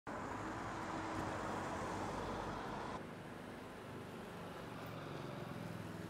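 Steady city street ambience with traffic noise, an even hum of vehicles without distinct events; it drops slightly in level about three seconds in.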